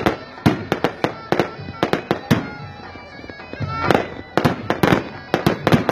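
Firecrackers going off in quick, irregular succession, two or three sharp cracks a second, over faint music and voices.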